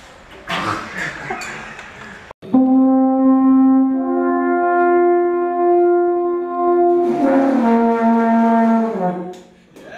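An alphorn blown by a first-time player: starting about two and a half seconds in, a few long held notes, one low note, a step up to a higher note held for about three seconds, then a step back down, the last note sagging lower before breaking off shortly before the end.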